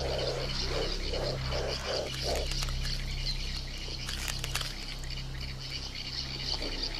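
Tropical riverbank ambience: a steady, high insect chorus with a low hum beneath, a run of six low, evenly spaced pulses in the first two and a half seconds, and a few sharp clicks about four seconds in.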